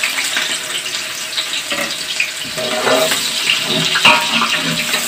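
Sliced onions sizzling in hot oil in a large aluminium pot, a steady hiss. From about halfway, a metal spatula clatters and scrapes against the pot as the onions are stirred.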